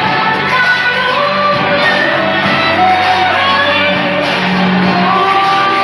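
Thai pop song playing loud and steady, with a sung melody over the backing track and shouted voices.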